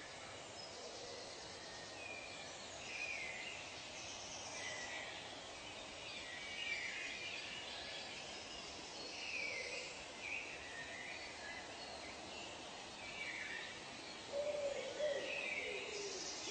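Wild birds calling: short chirping calls recur throughout over a faint high hiss, and a lower, wavering call comes in about two seconds before the end.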